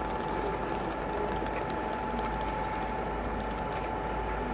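Steady railway station background noise with a constant high hum.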